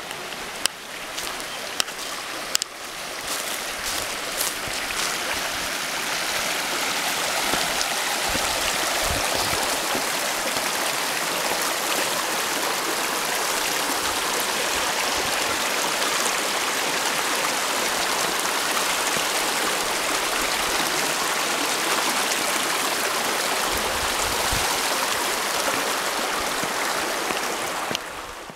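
Shallow forest creek running over rocks: a steady rushing of water that grows louder over the first few seconds and then holds. A few light knocks near the start.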